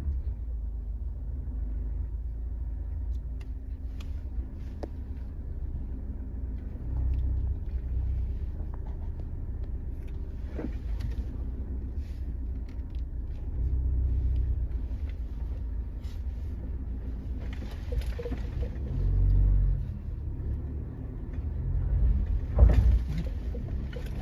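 A vehicle driving slowly over a rough dirt track: a steady low engine and road rumble with scattered knocks and rattles, and several heavier jolts, the biggest near the end.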